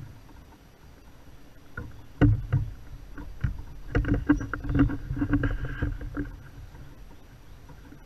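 A run of hollow knocks and rattling clicks on a plastic kayak hull as the gear is handled and bumped, starting about two seconds in and dying away after about four seconds.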